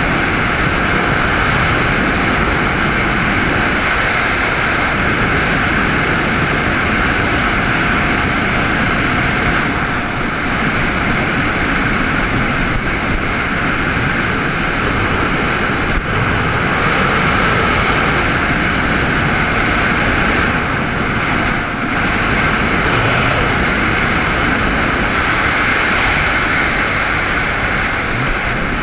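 2002 Kawasaki Ultra 130 DI jet ski's two-stroke engine and jet pump running steadily under way, mixed with wind and water rushing past.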